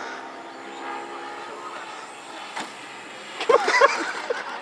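Small electric motor and propeller of a homemade RC model plane running steadily on its approach to land, fading away about three seconds in. A short burst of loud, irregular sounds follows near the end.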